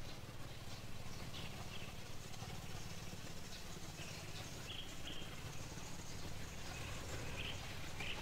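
Short high-pitched animal chirps, about seven at irregular intervals, over a steady low rumble.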